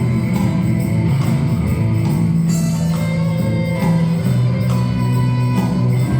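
Live instrumental ensemble playing a Brazilian popular song, with sustained low notes under a melody and a steady percussion beat.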